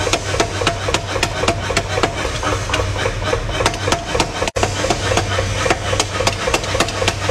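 Power hammer pounding a red-hot steel blade on its anvil in a fast, even run of metallic blows, over a steady machine hum. The blows break off for a moment about halfway through, then carry on.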